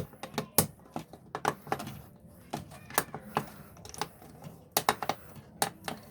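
Irregular plastic clicks and taps as an outlet's plastic cover plate is handled and fitted into place, some coming in quick clusters.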